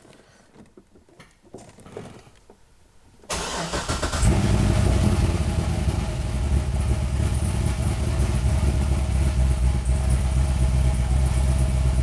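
A 2006 Chevrolet Corvette's 6.0-litre V8 with a large camshaft is started about three seconds in: it cranks briefly, catches within a second and settles into a steady idle. At idle it is misfiring, most often on cylinder 1.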